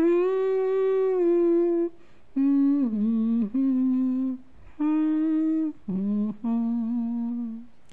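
A woman humming the melody of a slow song with no accompaniment, in a string of long held notes with short breaks between them.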